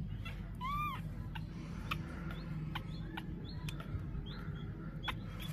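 High-pitched animal chirps and squeaks come in short separate calls, with one clearer arched squeak under a second in. Scattered light clicks run through them.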